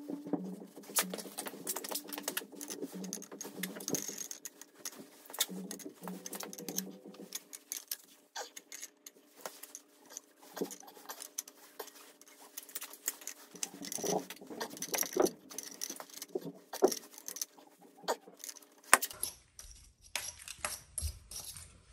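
Metal pipe fittings and a hand tool being handled at a water pipe and valve, giving irregular clicks, taps and light scrapes, over a faint steady hum.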